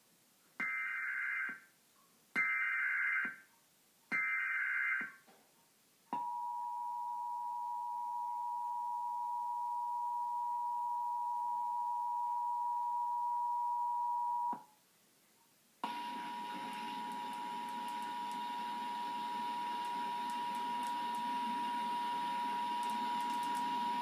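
Emergency Alert System test played through a television's speaker: three one-second bursts of the warbling SAME digital header, then the two-tone EAS attention signal held steady for about eight seconds. After a short gap a steady tone returns over a hiss.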